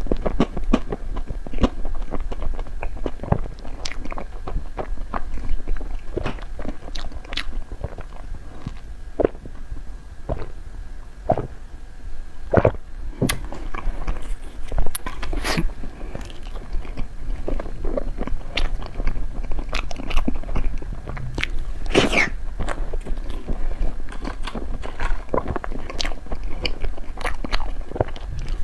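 Close-miked eating of cream-filled snow-skin mochi (xue mei niang): soft biting, wet chewing and smacking, with occasional crunches, as irregular clicks all the way through.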